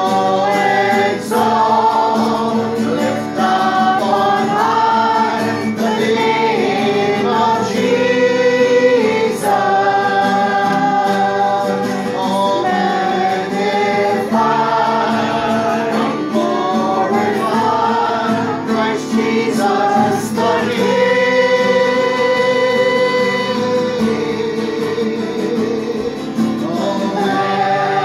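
A small group of people singing together to an acoustic guitar, in held phrases.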